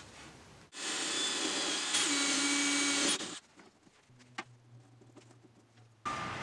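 An electric motor-driven tool running for about two and a half seconds, starting and stopping abruptly, followed by a faint low hum and a single click.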